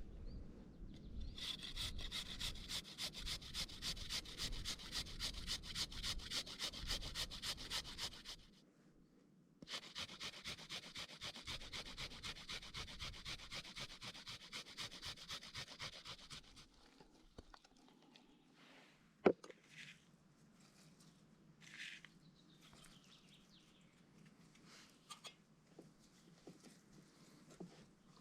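Fast rhythmic scraping strokes, several a second, in two runs of about seven seconds each with a short pause between. A single sharp knock comes near the end.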